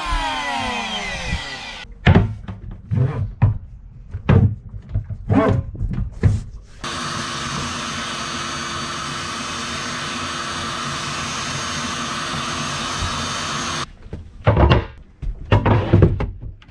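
An electric hand planer winds down with a falling whine, then knocks and clunks as it is handled and set down. About seven seconds in, a shop vacuum starts and runs steadily, sucking up plastic planer shavings, and cuts off suddenly about seven seconds later. A few heavy thumps follow near the end.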